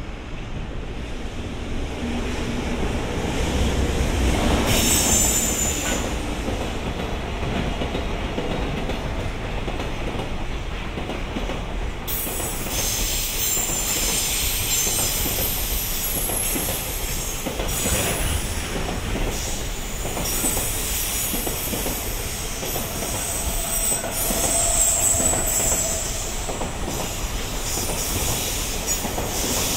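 A freight train's wagons rolling past slowly, steel wheels squealing high on the rails, the squeal strongest from about halfway through, with clatter from the wheels over the track.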